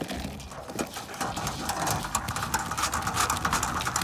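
Corrugated plastic RV sewer hose being pushed into the bumper's storage tube, its ribs rattling and scraping against the tube in rapid, irregular clicks.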